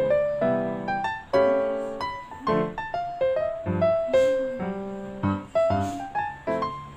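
Background piano music: a gentle melody of single notes and chords, each note struck and fading.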